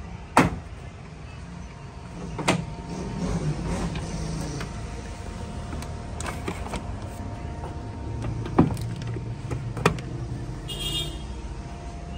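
Toyota Hilux inner door trim panel being pried off: its plastic retaining clips pop loose with sharp clicks. Later come more clicks and rustling as the panel is handled and its door-handle cable and connector are unhooked.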